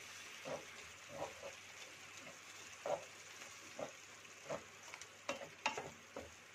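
Wooden spatula stirring and scraping wet, coarsely ground poha around a nonstick pan, with irregular soft knocks against the pan. Under it the mixture sizzles faintly and steadily as the water and ghee bubble on low heat.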